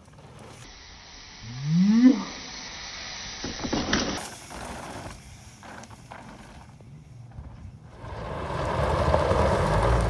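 A van's engine and its tyres spinning and scattering gravel, a sustained rumble and hiss that starts about eight seconds in and is the loudest part. Before it, a short rising pitched sound near two seconds and a sharp click near four seconds.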